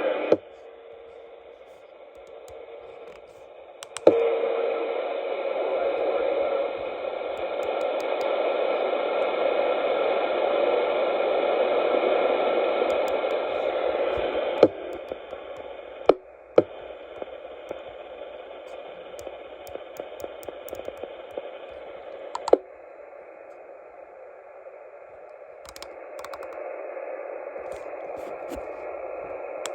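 Receiver static from a Xiegu G90 HF transceiver's speaker, tuned to the 11-meter CB band. A sharp click comes several times, and at each one the hiss changes, louder after the first and softer and duller after later ones, as the receive settings are switched.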